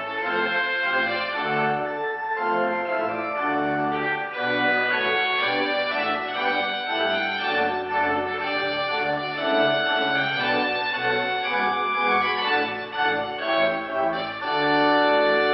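Organ playing a majestic trumpet-tune processional: full sustained chords over changing bass notes, settling on a long held chord near the end.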